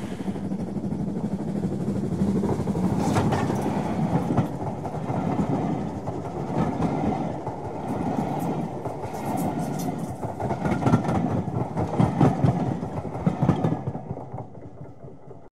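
A train's carriages rolling past with a steady rumble and irregular clickety-clack of wheels over rail joints, fading away near the end.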